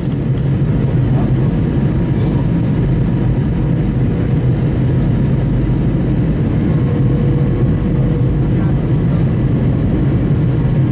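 Steady cabin noise of an Airbus A321-200 in flight on descent: an even low drone of engines and airflow, with a faint steady hum above it.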